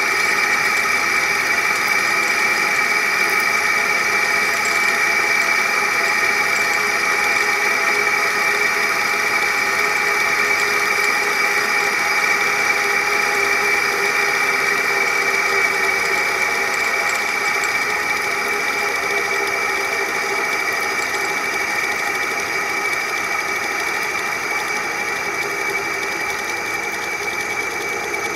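Cable car reel machinery running: a steady mechanical whir with several high, unchanging tones over a rumbling hum. It slowly grows quieter over the last third.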